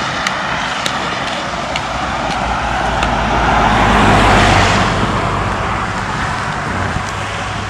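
A road vehicle passing, its noise swelling to a peak about four seconds in and then fading, over a steady low rumble.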